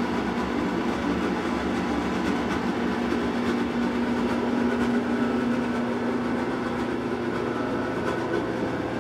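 A steady mechanical hum and rumble with a constant low drone.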